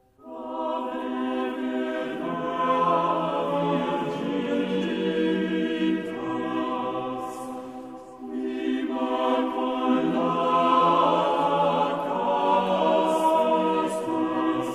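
A choir of monks singing sacred Latin chant, unaccompanied. A new phrase begins right at the start, and a brief pause for breath comes about halfway through.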